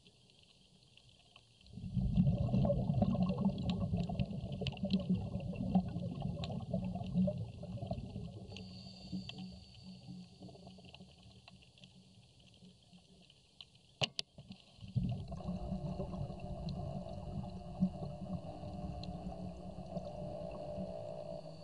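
Underwater sound: a muffled low rumble that swells about two seconds in and fades, then returns about fifteen seconds in, with a fine crackle of small clicks, a high steady hiss and one sharp click near the middle.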